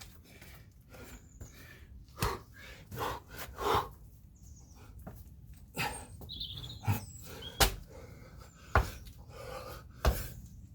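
A man exercising hard, panting between about six sharp thuds of hands and feet landing on the ground, with birds chirping faintly.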